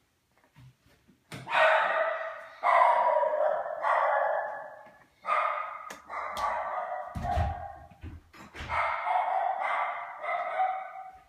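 A dog's drawn-out, pitched cries, one after another, each about a second long, beginning about a second and a half in. There are a few low thuds near the middle.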